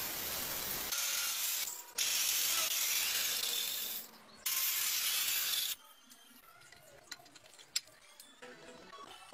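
Angle grinder cutting into a long animal bone, in three harsh grinding bursts of one to two seconds each with short breaks between them. It stops about six seconds in, and a few sharp clicks follow as the cut bone pieces are worked loose.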